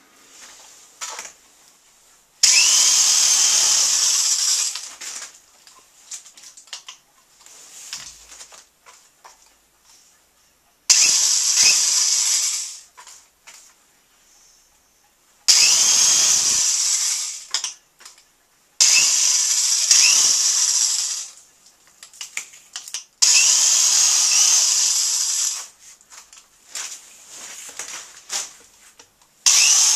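Power drill spinning a paintbrush in its chuck, run in about six short bursts of two to three seconds each, with a rising whine as it spins up each time. Light knocks and clicks come between the runs.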